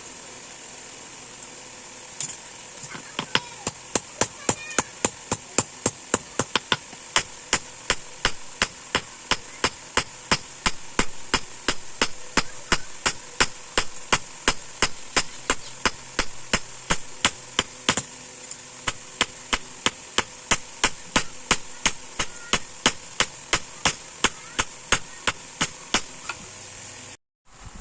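Hand hammer striking steel on an anvil, forging a leaf-spring blank, in a steady rhythm of about three ringing blows a second over a constant hiss.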